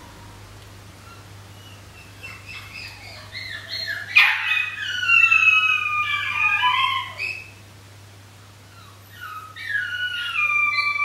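13-week-old Shetland Sheepdog (sheltie) puppies howling together, several high, wavering voices overlapping. The howls are faint at first, break out loudest with a sharp cry about four seconds in, pause briefly around eight seconds and start again. The owner takes the howling as lonely puppies calling for their pack. A steady low hum runs underneath.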